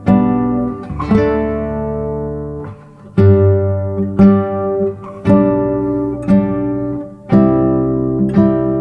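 Background music: plucked acoustic guitar chords, a new chord struck about once a second and left to ring.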